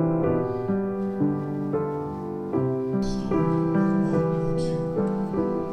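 Soft piano background music, a slow run of sustained notes.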